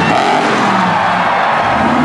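A monster truck's engine running loud in the arena, mixed with music.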